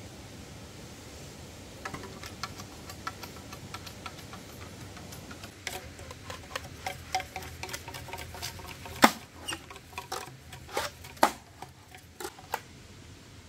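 Irregular small clicks and light knocks, starting about two seconds in and growing sharper and more frequent in the second half, with one loudest sharp crack about two-thirds through.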